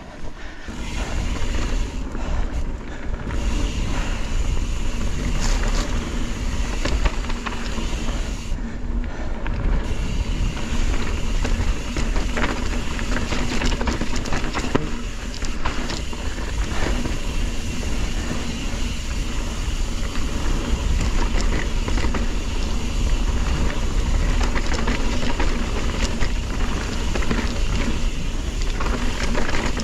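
Mountain bike riding noise on a rough dirt trail: a steady rumble of wind on the microphone and tyres on the ground, with frequent rattles and knocks from the bike over bumps.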